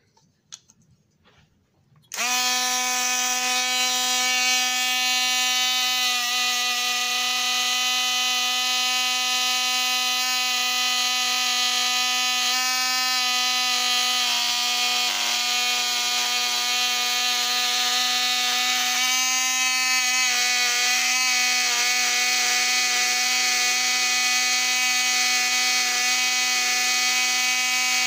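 A small electric motor starts about two seconds in and runs steadily at one pitch, a buzzing whine.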